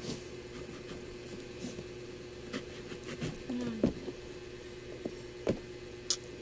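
Thick pomelo rind being torn off by hand: scattered soft tearing and crackling, sharpest about four and five and a half seconds in, over a steady low hum.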